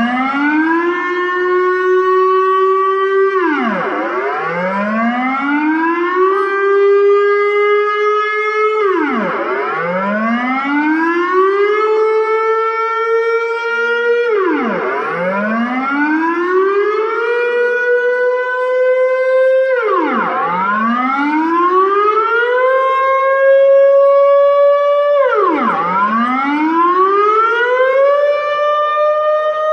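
Dutch civil-defence air-raid siren (luchtalarm) sounding its test signal, a loud wailing tone. Each cycle climbs over about a second and a half, holds high while still creeping upward, then drops sharply, repeating about every five and a half seconds.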